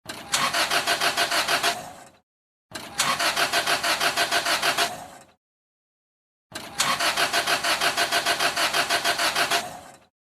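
Car engine being cranked by the starter three times, each attempt a rapid, even chug of about seven pulses a second that stops without the engine catching: a crank-no-start.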